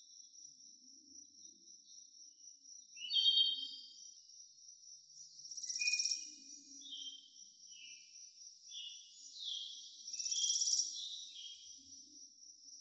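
Birds chirping in short, falling phrases, loudest about three seconds in and again around six and ten seconds, over a steady high insect trill.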